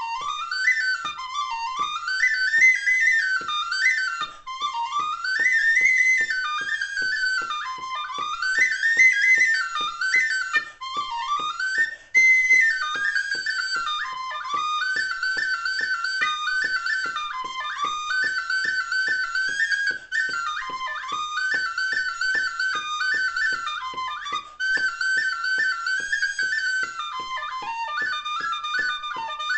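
Killarney tin whistle playing a fast Irish reel: quick runs of notes rising and falling, then repeated figures, with a few brief gaps.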